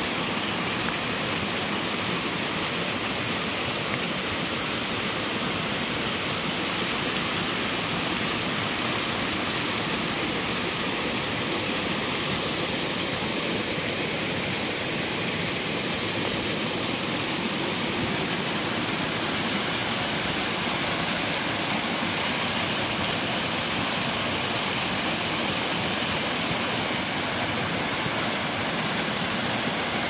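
Mountain stream tumbling down small cascades over rocks: a steady rush of falling water.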